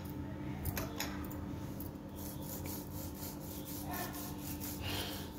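A cut lime half dipped in salt and chilli powder is rubbed over a fire-roasted corn cob, rasping in rapid, repeated strokes.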